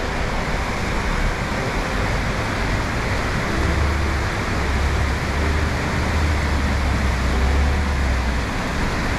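Steady rush of river water pouring over a low stone weir, with a low rumble underneath.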